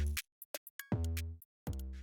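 Background music: an electronic drum-machine beat with deep bass notes and short hi-hat ticks, a new bass hit about a second in and another near the end.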